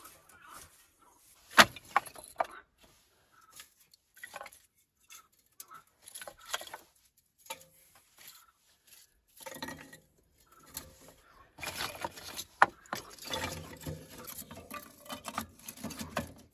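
Knife shaving thin curls off a stick into a feather stick, in short scraping strokes with a few sharp knocks, then dry kindling sticks rustling and clattering as they are packed into a small metal stove, busiest in the second half.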